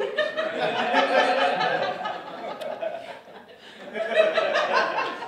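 A live theatre audience laughing. The laughter dies down about three seconds in and picks up again about a second later.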